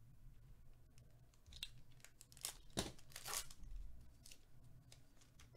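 Plastic foil wrapper of an Upper Deck hockey card pack being torn open and crinkling, in a cluster of several quick rips partway through.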